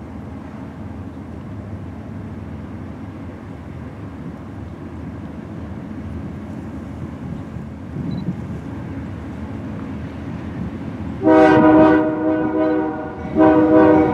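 Approaching BNSF diesel freight locomotives: a low engine rumble building slowly, then the locomotive air horn sounds one long blast about eleven seconds in and a second blast starts after a short break near the end.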